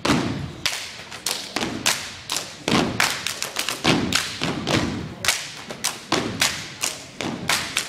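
Dance team stomping and clapping through a routine on a wooden gym floor: a quick, uneven rhythm of sharp thumps and slaps, a few per second, each echoing in the gymnasium.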